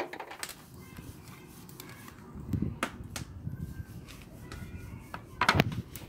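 Handling noise of seasoning a slab of pork belly on a stainless-steel tray: a sharp click at the start, two light knocks about three seconds in, and a louder thump with a rattle a little after five seconds.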